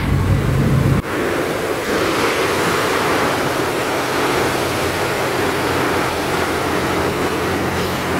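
Isuzu Rocky six-cylinder diesel of a dump truck running while its hydraulic bed tips up to unload sugarcane. About a second in, the low engine hum gives way to a steady rushing noise that covers it.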